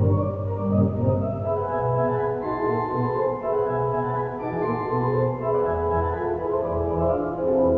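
Music of slow, sustained chords in an organ-like tone, the notes held and shifting every second or so. The sound is dull, with no high treble.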